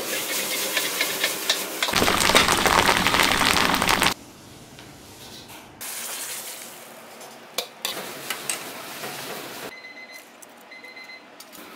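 Restaurant kitchen sounds cut together: food frying in hot oil, the loudest sizzle about two to four seconds in, then quieter clips with a few sharp knocks of cookware. Two short electronic beeps near the end.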